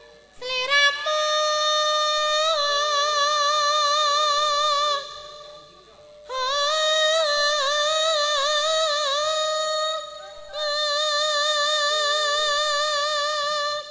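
Javanese sinden, a female gamelan singer, amplified through a microphone, singing three long held phrases with wavering vibrato and ornamented pitch turns. There are short pauses between the phrases, and a faint sustained lower note sounds beneath parts of them.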